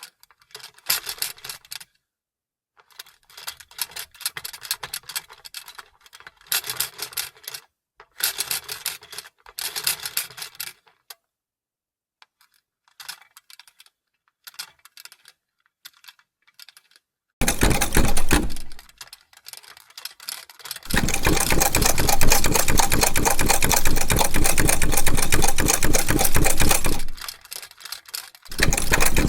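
Vintage sewing machine: in the first half, short bursts of light rapid clicking with pauses between them. Then it runs at full speed with an even, fast stitching rhythm, briefly at about two-thirds of the way in, again for about six seconds, and once more near the end.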